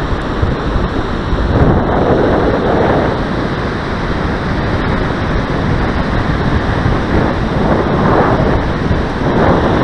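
Heavy wind buffeting the microphone, swelling and easing, with surf from the beach mixed in.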